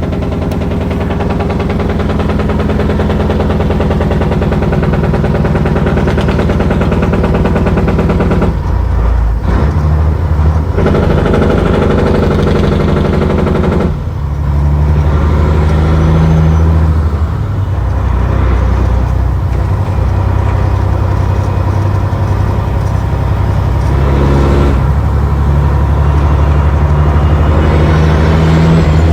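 Caterpillar C15 (6NZ) 15-litre inline-six diesel engine running loudly, its engine speed shifting up and down a few times. The title says the engine is making a noise; the nature of the fault is not named.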